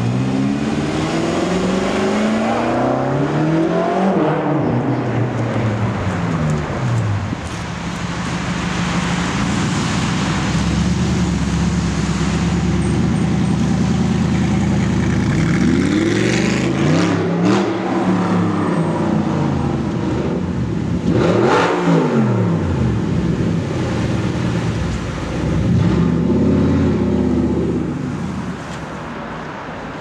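Several high-performance cars accelerating hard on a city street, one after another, including a BMW M5's twin-turbo V8 and an Audi R8. Each engine revs up in rising pitch, then drops in pitch as the car passes. The sharpest pass-by comes about two-thirds of the way in.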